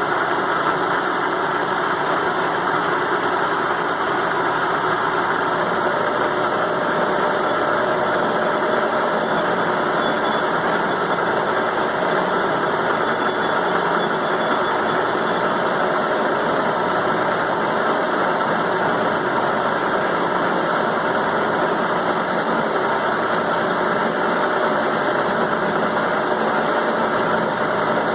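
Milling machine cutting thick steel with a roughing end mill, running steadily with no change in level.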